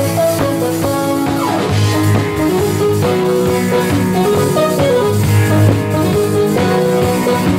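Live band playing an instrumental passage on drum kit and guitar with a steady beat.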